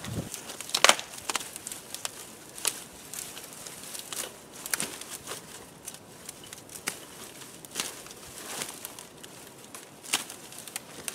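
Dry brush being trampled and handled: stems rustling and twigs snapping in irregular sharp cracks, the loudest about a second in.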